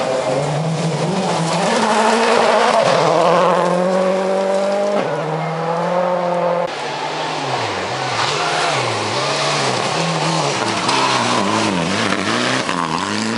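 Rally cars driven hard on a gravel stage, their turbocharged engines revving up and falling back again and again through gear changes and lifts, with tyre and gravel noise. The sound cuts abruptly to another car about seven seconds in.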